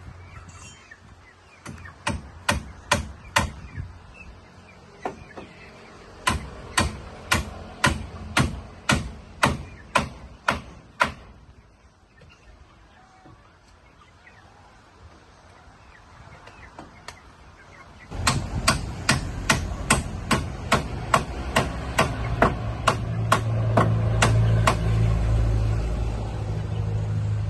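A hammer driving nails in three runs of sharp blows, about two a second, with pauses between. A low steady drone comes in about two-thirds of the way through and gets louder toward the end.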